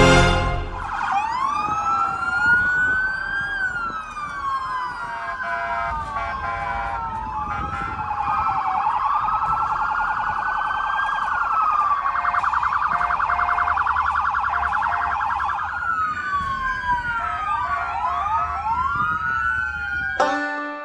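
Sirens from several police vehicles sounding together: overlapping wails that rise and fall, switching to a fast yelp for several seconds in the middle. A low vehicle rumble runs underneath.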